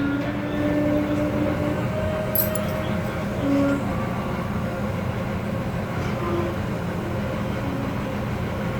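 Glassworking torch flame running steadily, with faint short tones coming and going over it.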